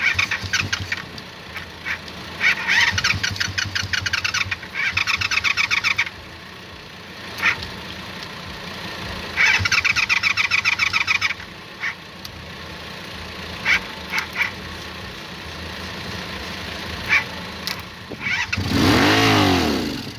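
Motorcycle engine cranked on its electric starter in three bursts of rapid chugging, with single clicks between them. The starter is being worked without the start button because the starter solenoid is bad. Near the end the engine catches and revs up and back down for a second or so.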